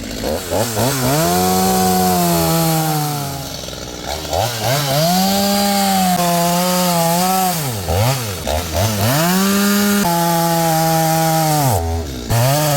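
Stihl two-stroke chainsaw revved up in four bursts of about three seconds each, dropping back toward idle between them, as when cutting wood.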